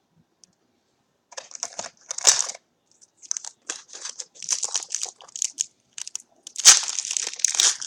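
Trading-card pack wrapper crinkling and rustling in a series of short bursts as the next pack is handled and opened, starting about a second in and loudest near the end.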